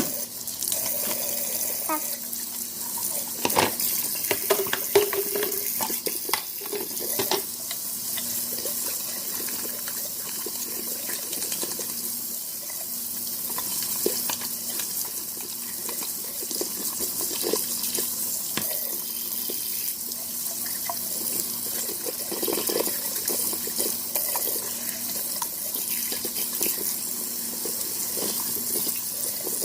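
Kitchen tap running steadily into a sink, with scattered knocks and clatter of things handled under the water.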